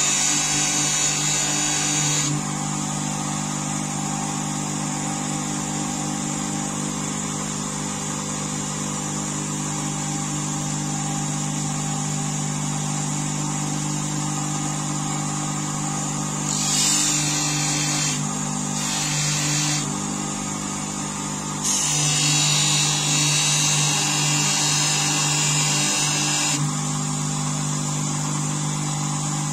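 A bench grinder's electric motor runs steadily, spinning a felt polishing wheel charged with abrasive paste. A hook knife's steel blade is pressed against the wheel for the first two seconds, in two short touches past the middle, and for about five seconds near the end. Each contact adds a louder hiss of metal being polished.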